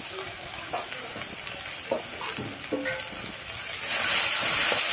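A metal spatula scrapes and taps around an iron karahi as spice paste fries in oil. About four seconds in, a loud sizzle starts as a little water goes into the frying masala.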